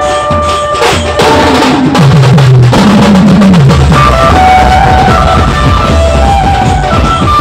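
Loud dhumal band music: drums pound a heavy steady beat under an amplified melody played through a DJ speaker system, with falling low notes about two to three seconds in.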